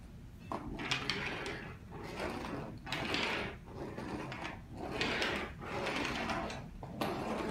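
Repeated scraping swishes, about one a second, each lasting most of a second.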